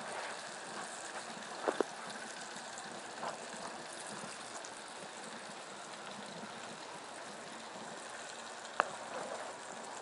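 Steady sizzling hiss from a barbecue with two turkeys roasting in foil pans, drippings frying on the hot grill. There are a couple of light clicks, once about two seconds in and once near the end.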